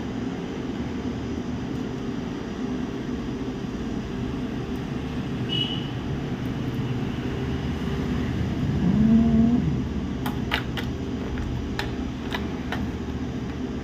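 Steady mechanical hum, like a fan running, with a short series of small sharp clicks in the last few seconds.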